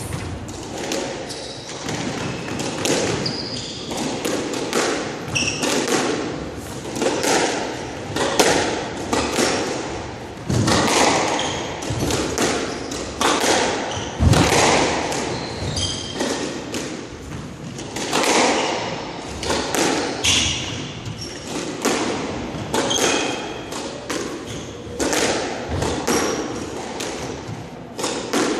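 A squash rally: the ball is struck by rackets and smacks against the court walls at an irregular rapid pace, with short squeaks of court shoes on the wooden floor between the shots.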